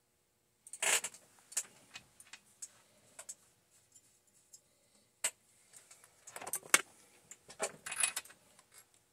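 Small metal parts and a hand tool clicking and clinking against a Holzfforma G372XP chainsaw's top end during bench assembly: irregular clusters of sharp clicks and short rattles, the loudest about a second in and near the end.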